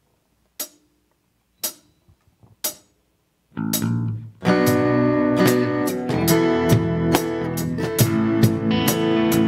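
A worship band starting a song: three short clicks a second apart count it in, then guitar comes in about three and a half seconds in and the full band with strummed guitar and bass plays from about four and a half seconds.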